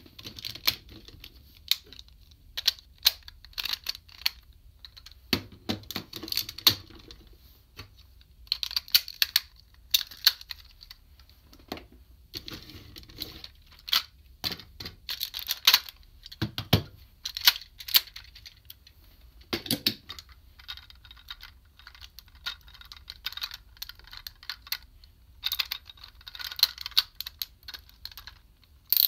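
Hard plastic parts of a DX Kerberios combining toy robot being pulled apart and refolded by hand: irregular clicks, snaps and rattles of joints and pegs, with a couple of heavier knocks about two-thirds of the way through.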